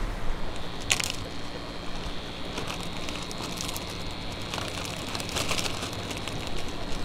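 Clear plastic zip-top bag crinkling as it is handled and pulled open, with scattered sharp crackles, the loudest about a second in and again between about four and six seconds in.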